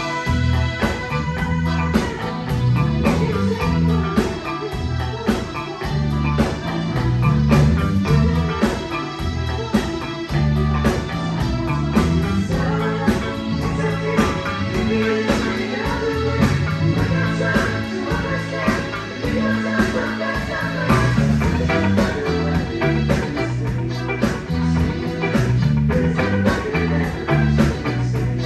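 Live band playing a song in rehearsal, with a moving bass line under a steady beat.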